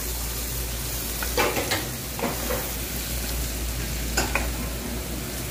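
Diced potatoes sizzling in oil in a non-stick frying pan while a wooden spatula stirs them, with a few short scrapes of the spatula against the pan.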